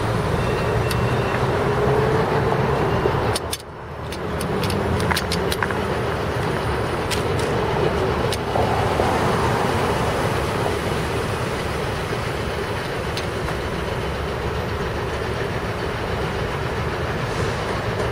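City street traffic: cars and trucks running past, a steady rumble of engines and tyres. The sound briefly drops away about three and a half seconds in, then comes back.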